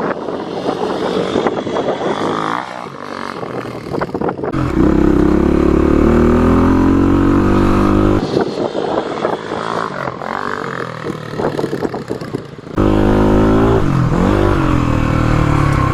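Dirt bike engine accelerating, its pitch climbing about five seconds in and again near the end, with rougher, noisier running in between.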